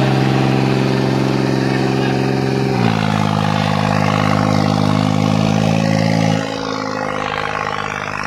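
New Holland 3630 tractor's diesel engine running hard at high revs under load in a tractor tug-of-war. Its note is steady, dips slightly in pitch about three seconds in, and drops a little in level past the six-second mark.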